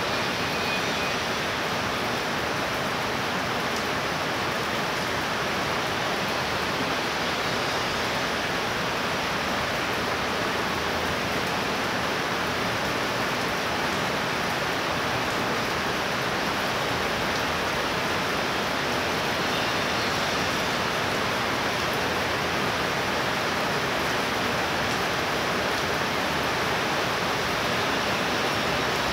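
Heavy rain pouring down steadily, a dense even rushing hiss that does not let up.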